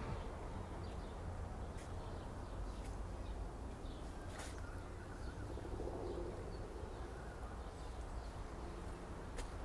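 Outdoor park ambience: a steady low rumble with scattered bird calls and a few light clicks. About six seconds in there is a short low call that fits a pigeon's coo.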